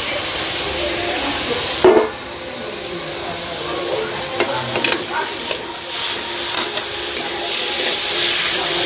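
Grated pointed gourd (parwal) added to a pan of frying tomato-and-spice masala. It lands with a thump about two seconds in and the high sizzle drops. A spatula then clicks against the pan while stirring, and the sizzle builds again.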